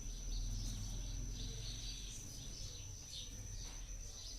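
Background ambience: birds chirping faintly and irregularly over a steady high-pitched whine and a low hum.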